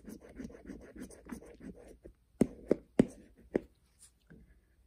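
A round scratcher rubbing the coating off a scratch-off lottery ticket in quick, even strokes for about two seconds. The scratching then stops and four sharp clicks follow.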